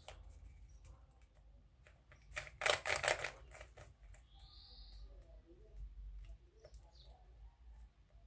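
Oracle Bone Script 3x3 puzzle cube being turned by hand: light clicking of its layers, with a quick run of louder clacks about two and a half to three seconds in.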